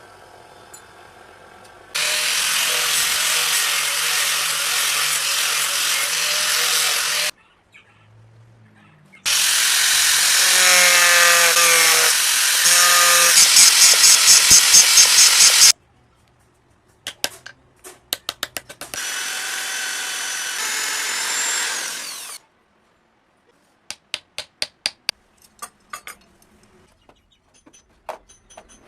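Power grinder grinding steel while a small knife is being shaped, in three bursts of several seconds each with pauses between. Two runs of quick, sharp taps fall in the gaps.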